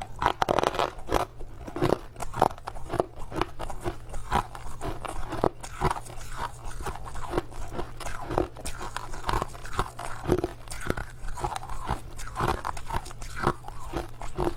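Crushed ice being bitten and chewed close to the microphone: rapid, irregular crunches, several a second.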